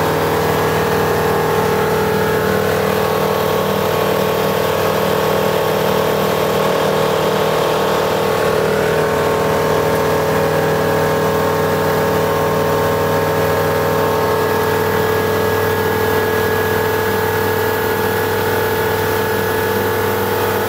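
Flight Design CTLS light-sport aircraft's piston engine and propeller running at a steady cruise power, heard from inside the cockpit as a loud, even drone with a constant pitch.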